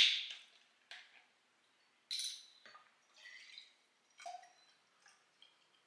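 Orange juice poured from a cardboard carton into a drinking glass, coming in several short separate splashes. A sharp click at the very start is the loudest sound.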